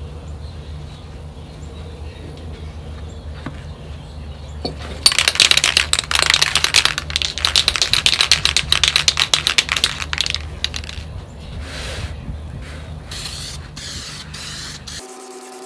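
Aerosol spray paint hissing as a wet second coat goes on: one long spray starting about five seconds in, then several shorter bursts, over a steady low hum.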